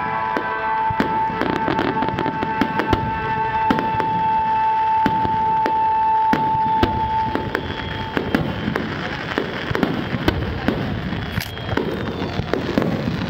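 Fireworks display: aerial shells bursting in quick succession, many sharp bangs and crackles layered over each other. Music with a long held note plays along through the first half, fading after about seven seconds.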